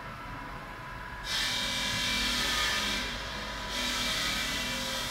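A power tool's steady grinding hiss starts about a second in, over a constant machine hum. It thins briefly around three seconds and then comes back at full strength.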